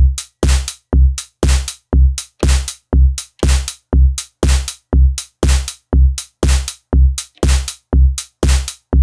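Elektron Digitone FM synthesizer playing a programmed drum pattern: a steady four-on-the-floor kick drum about twice a second, with bright, hiss-like hi-hat hits between the kicks.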